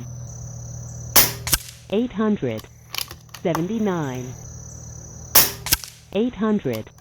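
Two shots from a .25 caliber Air Venturi Avenger PCP air rifle, regulated at 2500 psi, each a sharp crack, about four seconds apart. Each crack is followed by a fainter knock about a third of a second later.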